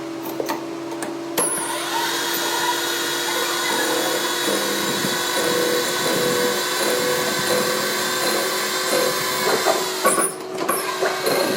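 Electric power tool motor running steadily, coming up about a second and a half in and dropping out briefly near the end before running again.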